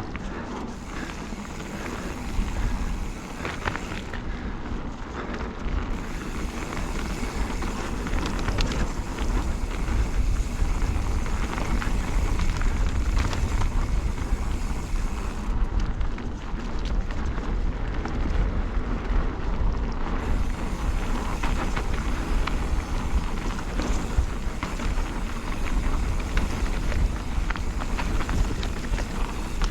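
Mountain bike's knobbly tubeless tyres rolling over a dirt trail: a steady rushing noise with a low rumble, and scattered clicks and rattles from the bike. It grows a little louder about two seconds in.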